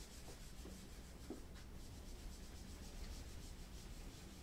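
Whiteboard being erased: faint, soft rubbing of repeated wiping strokes across the board's surface.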